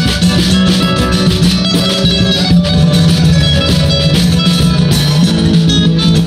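Live acoustic guitar music from a small group, two guitars playing together in a steady stream of plucked notes.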